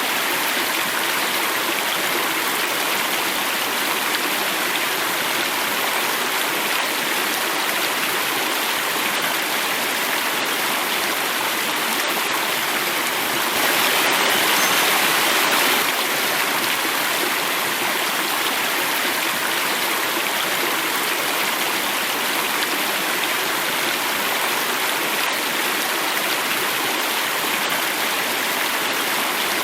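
Running water flowing and falling over rocks, a steady rushing. It swells a little louder for about two seconds around the middle.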